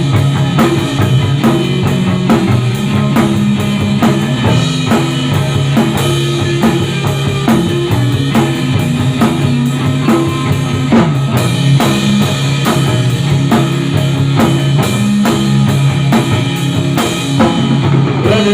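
A rock band playing an instrumental passage: a drum kit keeps a steady, fast beat under electric guitar and bass, with no singing.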